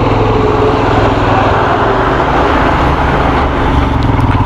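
Motorcycle engine running at low revs with a steady exhaust beat, heard from the rider's seat, while an oncoming truck's engine passes close by.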